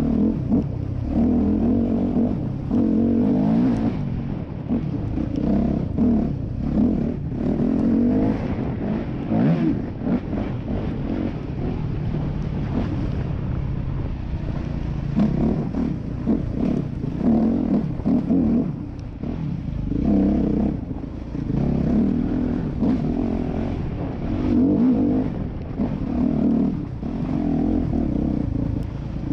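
Yamaha YZ250F four-stroke single-cylinder dirt bike engine, heard from on board, revving up and down over and over as the throttle is opened and closed on a muddy trail.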